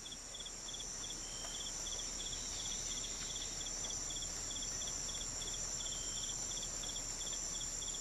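Night insects calling: short pulsed chirps repeating about three times a second over a steady high-pitched trill.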